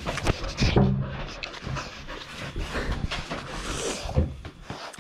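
A pit bull panting and snuffling at close range, with a short low whine about a second in.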